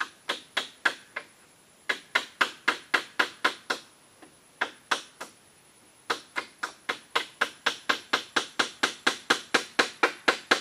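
Hand hammering on a split-bamboo roof, fixing the bamboo sections to the frame: quick, sharp blows about three or four a second, in short runs broken by two brief pauses, then a longer steady run.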